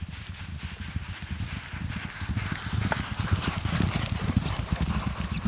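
Hoofbeats of three racehorses galloping on an all-weather gallop track, a rapid, jumbled drumming that grows louder as they come past close by, loudest about four seconds in.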